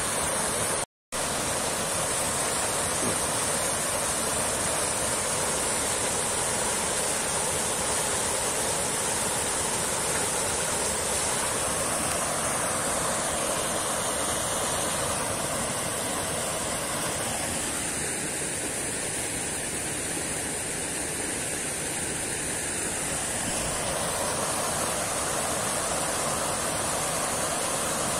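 Steady rush of falling, splashing water at a water wheel.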